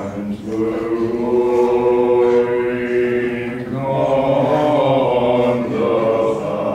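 A small group of voices singing a slow song a cappella in chant-like unison, holding long notes that change pitch twice.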